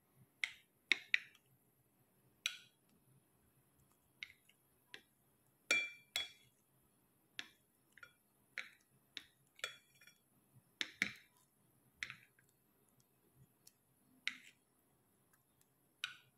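A utensil clicking and clinking against a dish in sharp, irregular taps about once a second, as bread rolls are turned in beaten egg.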